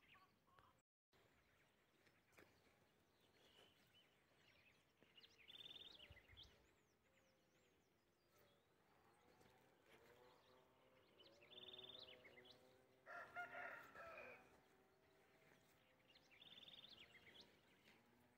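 Faint outdoor sounds: a rooster crows once, about two-thirds of the way through. A small bird gives a short high call three times, about five seconds apart.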